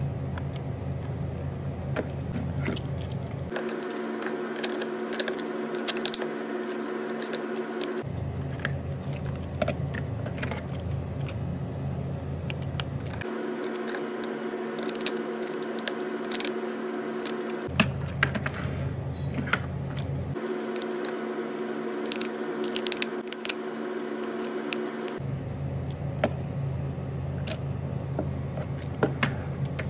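Hard plastic toy cars being handled and turned over, with scattered sharp clicks and taps of plastic against plastic and fingers. Under them runs a steady hum that changes abruptly several times.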